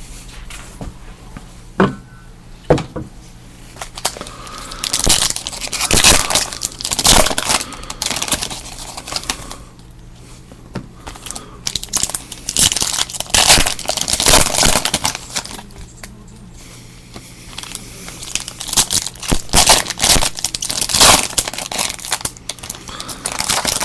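Trading card pack wrappers being torn open and crinkled, in irregular bursts of tearing and crackling.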